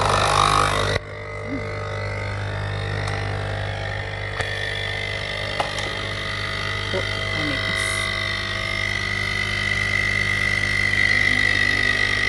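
Nespresso capsule machine's pump running as it brews a short espresso shot: a steady buzzing hum with a whistling tone that grows louder toward the end. It opens with a loud hiss lasting about a second.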